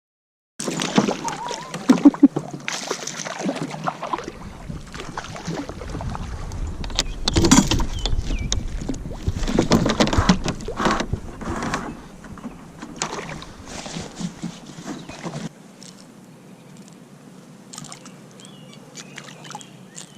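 Kayak on the water: uneven splashing and knocks against the hull, starting abruptly and loudest in the middle, then dropping off sharply about fifteen seconds in. A few faint chirps follow near the end.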